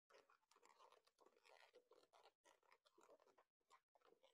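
Very faint crackling and rubbing of balloons being twisted and handled, in many small irregular bits of sound, barely above near silence.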